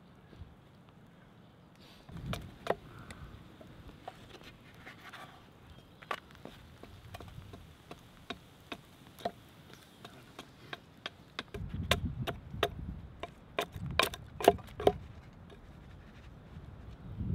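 Scattered small clicks and crackles around a campfire, then in the last few seconds a quick run of sharp hatchet strokes on wood, each with a dull thud, as a stick is carved.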